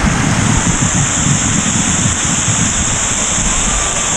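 Steady rushing outdoor noise, with wind buffeting the microphone and a steady high-pitched hiss above it.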